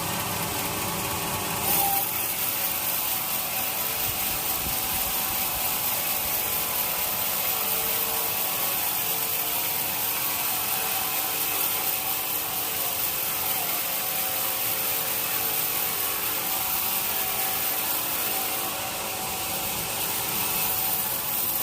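Sawmill saw cutting through a teak log: a steady machine drone with a high hiss of the blade in the wood that starts abruptly about two seconds in.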